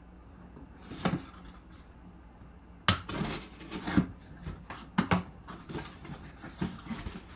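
A cardboard box being handled and opened: a series of short knocks, taps and scrapes of cardboard as the box is turned and its taped flaps are pulled open, with the loudest knock about three seconds in.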